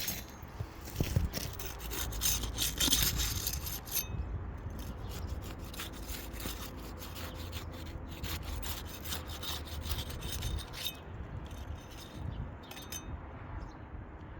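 Metal hand tool scraping and prying under old asphalt roof shingles, breaking their seal to loosen them for a repair: a run of irregular rasping scrapes, heaviest in the first few seconds, then lighter and sparser.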